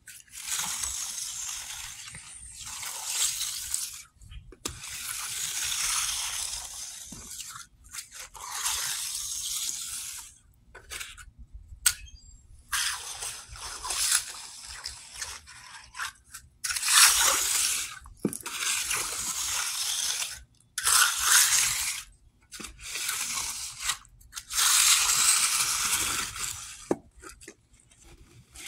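Hand trowel scraping and swishing across freshly poured wet concrete while the slab is smoothed, in repeated strokes about one to two seconds each with short pauses between them.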